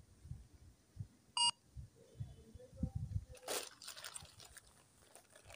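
A single short electronic beep about a second and a half in, then the crinkle of plastic courier parcel bags being handled, with soft handling bumps.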